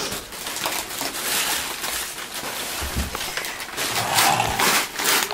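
Gift wrapping paper rustling and crinkling in irregular bursts as presents are handled and unwrapped.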